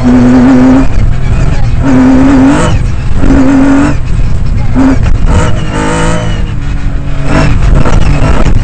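Lancia Stratos rally car's V6 engine, heard very loud from inside the cabin, driven hard on a gravel stage: the engine note holds and then cuts off several times in quick succession as the driver lifts and changes gear, with constant road noise underneath.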